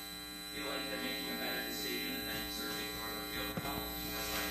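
Steady electrical mains hum with a buzz of many overtones. About half a second in, faint, distant speech starts under it: an audience member asking a question off-microphone.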